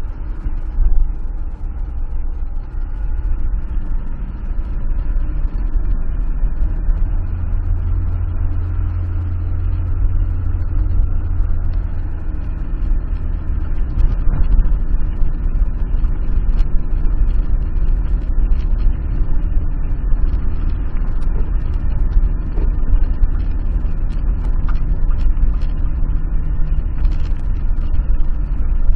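Car engine pulling steadily uphill with a heavy low rumble of tyres on a rough, wet road, heard from inside the cabin. A brief loud knock comes about a second in, and scattered clicks run through it.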